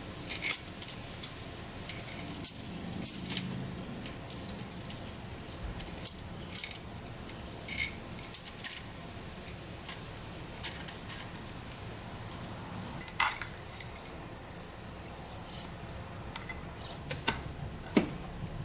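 Scattered light metallic clinks and clicks of engine parts and hand tools being handled while fitting the gasket during a four-stroke dirt bike's top-end assembly.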